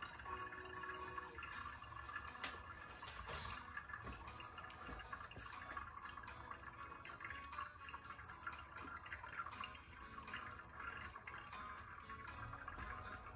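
A thin stream of hot water poured from a gooseneck kettle onto tea leaves in a dripper, trickling and dripping through into a glass server below.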